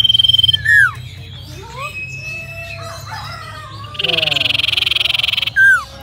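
Common iora (cipow) calling: a long steady high whistle that breaks into a loud, sharply falling note about a second in, then scattered chirps, a dense buzzy rattle about four seconds in, and another loud falling note near the end.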